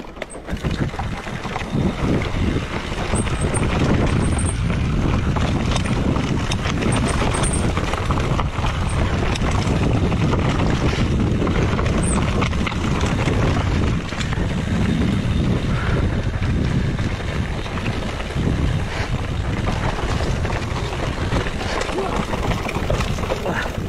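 Wind buffeting the helmet or chest camera's microphone over the rumble of a mountain bike rolling fast down a rocky dirt trail, with tyres crunching over stones and the bike rattling over bumps. It builds over the first couple of seconds and then runs steadily.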